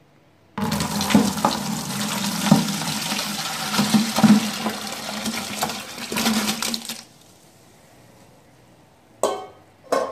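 Brine full of fruit chunks poured from a stainless steel pot into a plastic bucket: a splashing pour that starts suddenly about half a second in and stops about seven seconds in, with pieces of fruit thudding into the bucket. Two sharp knocks near the end.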